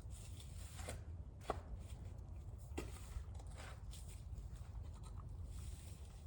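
Faint scraping and a few short knocks of digging in a small stream bed, over a steady low rumble on the phone's microphone.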